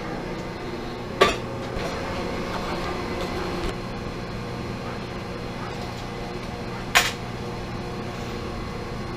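Steady electric hum of shop machinery, broken by two sharp knocks, one about a second in and another near seven seconds in.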